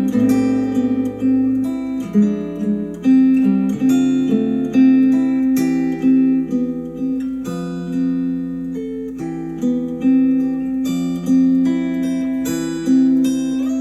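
Music of plucked acoustic guitar, a steady run of picked notes, played back through Adam Audio A5X powered studio monitors.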